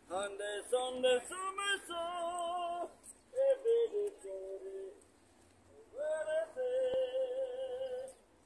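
A voice singing a slow melody in three phrases, with held, wavering notes. The last phrase ends in a long held note.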